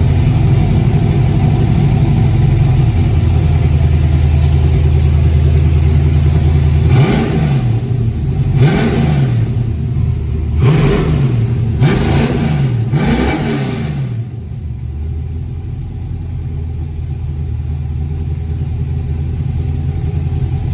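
LS V8 on Holley Sniper 2x4 dual-quad fuel injection, running on E85 just after its first start: it idles steadily, then revs up and down four or five times about halfway through, then settles back to a quieter idle. The injection has not yet learned its fuel map and is still cold.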